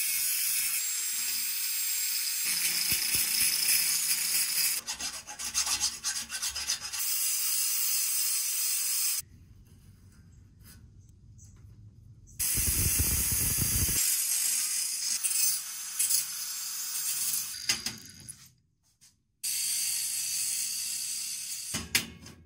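Angle grinder grinding steel in several runs with short pauses between them. There is a short low rumble about halfway through.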